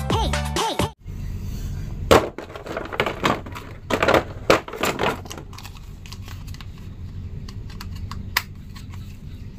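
Music cuts off about a second in. Then clear plastic bags crinkle and crackle, with plastic clicks, as toy action figures are rummaged through and picked up, busiest in the middle and sparser toward the end, over a steady low hum.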